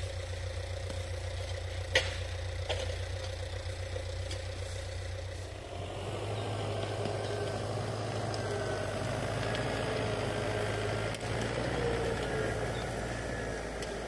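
Tractor engine running steadily, with two sharp knocks about two seconds in. About halfway through, the engine's sound grows fuller and a little louder.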